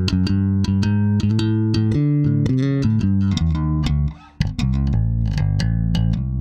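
FGN Neo Classic Jazz Bass played through its original pickups, both pickups on with the tone all the way up: a quick line of plucked notes, each with a bright attack. The notes break off briefly about four seconds in, then the line carries on.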